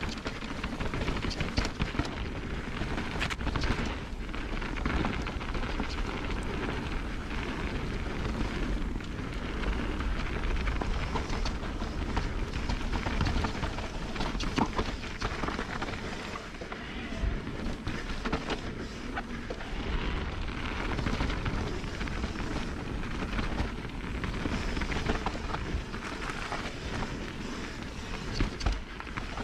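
Mountain bike riding down a dirt and rock singletrack: tyres rolling over dirt and rock, and the bike knocking and rattling over bumps, under a steady low rumble of wind buffeting the action camera's microphone.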